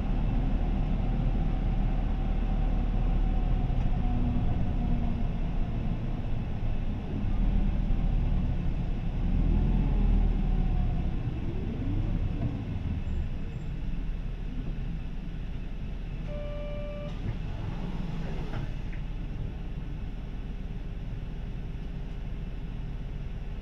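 Isuzu Erga city bus heard from inside the cabin: its four-cylinder diesel engine and road rumble while driving, with the engine pitch gliding as it slows, then settling to a quieter steady run. About two-thirds of the way through, a short electronic chime sounds, followed by a brief hiss.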